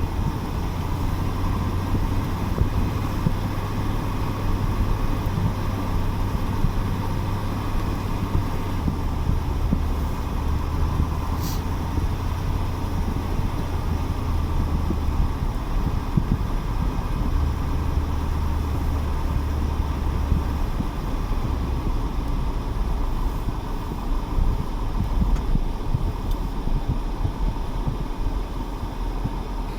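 Truck crane's engine running steadily, its low drone shifting in pitch a few times and settling lower in the second half.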